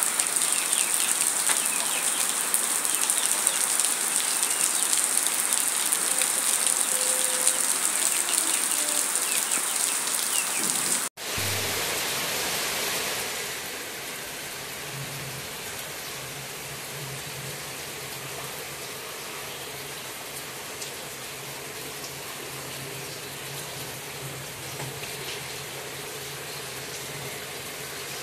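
Heavy rain falling steadily, a dense hiss of drops. About eleven seconds in it cuts off for an instant and gives way to softer steady rain.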